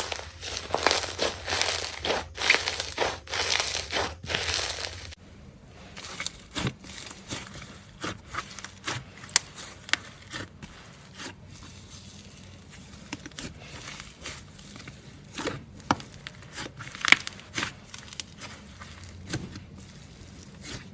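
Slime being squeezed and poked by hand: dense crackling for about the first five seconds, then after an abrupt cut, scattered sticky clicks and pops with quieter gaps.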